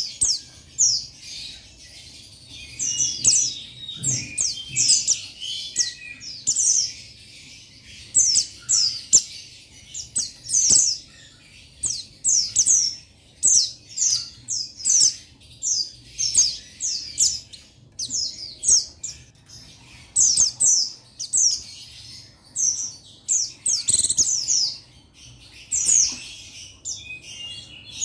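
Male white-eye (pleci buxtoni) singing a challenge song to rivals: fast runs of high, thin chirps that slide downward, in short repeated bursts about every second.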